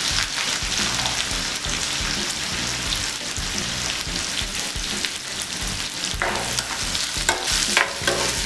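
Sliced onions and green chillies sizzling steadily in hot oil in a kadhai. From about six seconds in, a spatula stirs them, adding a few short scraping strokes over the sizzle.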